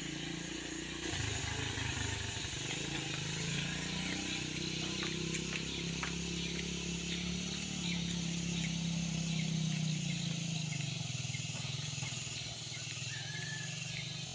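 A motorcycle engine running steadily with a low hum that rises and falls a little in pitch. It is loudest in the middle and eases off toward the end, over a hiss of outdoor background noise.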